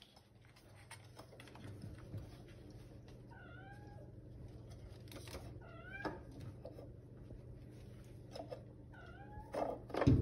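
Kittens meowing: three short, thin meows about 3.5, 6 and 9 seconds in, over a scatter of light clicks, with a louder knock near the end.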